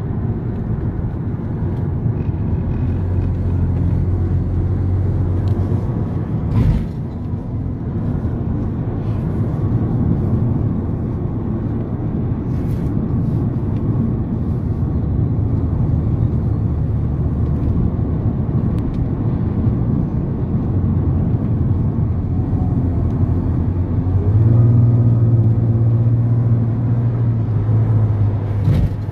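Car engine and road noise inside a moving car's cabin: a steady low drone with an engine hum that gets louder and a little higher for a few seconds near the end as the car speeds up. A short knock about seven seconds in.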